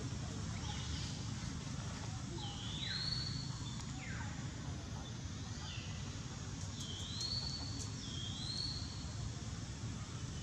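Several short, high whistled animal calls, each rising to a held note or sweeping steeply downward, repeating every second or two over a steady low background rumble.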